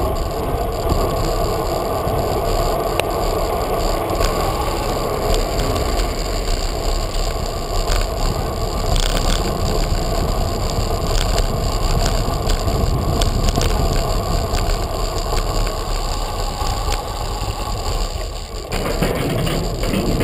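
Bicycle rolling along city streets and over brick paving: a steady rumble of tyres and wind on the microphone, with frequent small knocks and rattles from the bike over the uneven surface.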